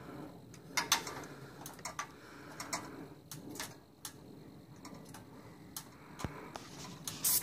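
A paint spray gun hissing in short, irregular bursts as the trigger is pulled, with a longer burst near the end.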